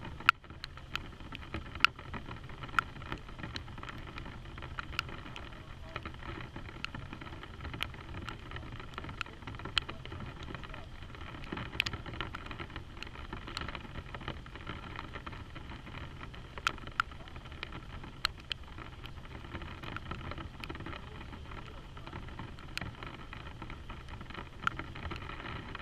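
Steady rain with a low rumble underneath, and irregular sharp ticks of single raindrops striking a hard surface close to the microphone.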